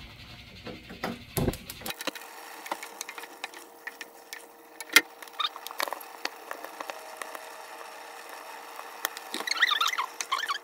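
A wooden spoon stirring rice cakes and fish cakes in thick chilli sauce in a pot: scattered clicks and scrapes of the spoon against the pot, one sharp knock about five seconds in, and a louder burst of wet, sticky stirring near the end.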